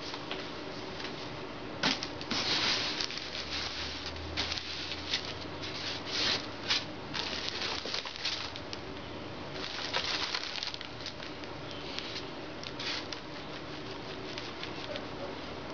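Clear plastic bag crinkling and rustling in irregular bursts as the foam wig head wrapped in it is handled and lifted from its box.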